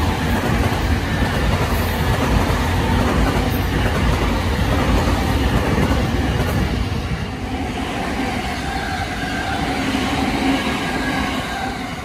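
Electric commuter train passing close by, a steady loud rumble of wheels on the rails that eases off and starts to fade near the end.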